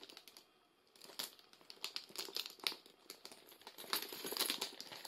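Crinkling and rustling of hands handling small accessories, with scattered small sharp clicks, quiet for about the first second and busiest around four seconds in.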